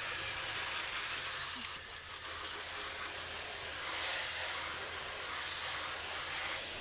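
Water from a garden-hose shower nozzle spraying onto a Ford Bronco's washout interior floor: a steady hiss of spattering spray.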